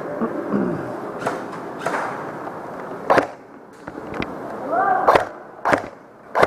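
Murmur of people talking, broken by about seven sharp, very brief snaps at irregular intervals.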